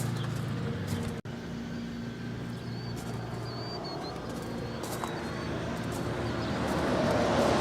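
John Deere 5055E's three-cylinder turbo diesel idling steadily, with a brief drop-out about a second in. Birds chirp faintly over it in the middle.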